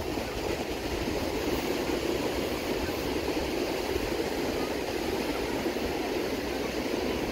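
Steady wash of ocean surf breaking and running up a sandy beach.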